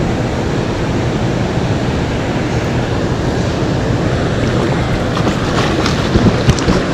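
Steady rushing noise of wind and water, with a hooked catfish splashing and thrashing at the surface beside the kayak near the end.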